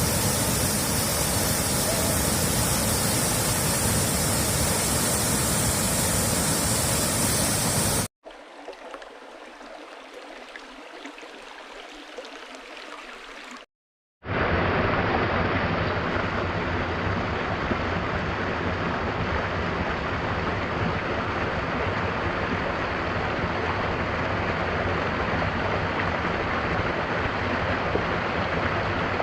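Rushing water, as from a waterfall or stream, in three separate recordings joined by hard cuts. A loud rush lasts about eight seconds, then cuts to a much quieter, thinner flow. After a brief silence, another loud, steady rush of water comes in near the middle and runs on.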